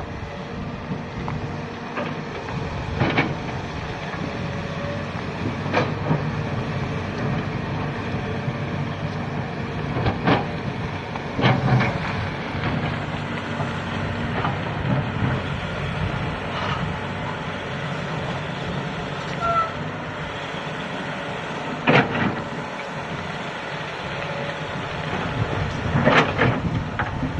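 Komatsu PC200 hydraulic excavator's diesel engine running steadily at working revs. Sharp metallic clanks and knocks break in every few seconds at irregular intervals, several close together near the end.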